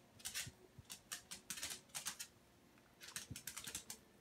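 A Lhasa Apso's claws tapping on a hardwood floor as she shifts her feet in place: faint, quick, irregular light clicks in a few short clusters.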